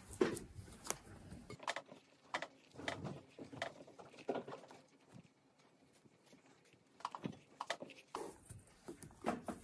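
Hands kneading a crumbly dough of flour, egg yolks and butter in a bowl: irregular soft squishing and patting, quieter for a couple of seconds in the middle.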